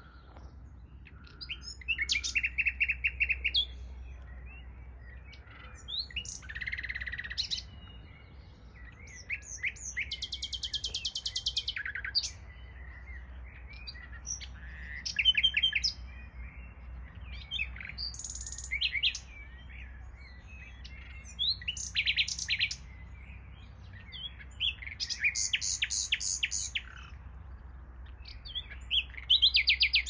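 Nightingale singing: about eight separate phrases, each a second or two long, many of them fast runs of repeated notes, with short pauses between. A steady low rumble lies underneath.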